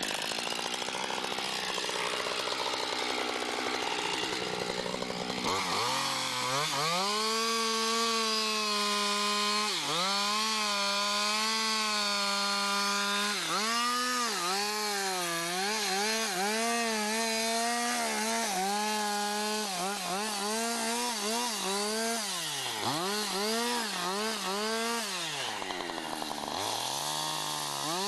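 Chainsaw cutting into a large pine trunk. It revs up about five seconds in, then its engine note repeatedly drops as the chain bogs in the wood and climbs back to full speed.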